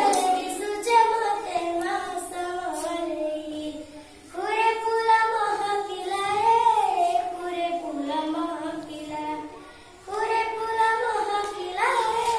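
A young girl singing a song solo and unaccompanied, in long sustained phrases with short pauses about four and ten seconds in.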